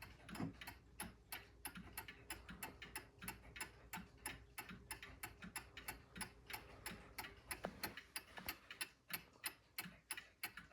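British time-and-strike mantel clock ticking faintly with a quick, even beat of several ticks a second.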